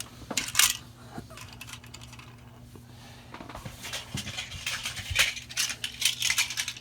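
Rustling and small clicks of plastic packaging and small plastic toy wagons being handled, over a steady low hum.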